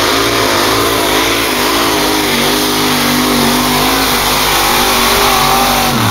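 Competition pulling tractor's engine running flat out under load as it drags the weight sled, its pitch wavering up and down; the pitch falls away at the very end.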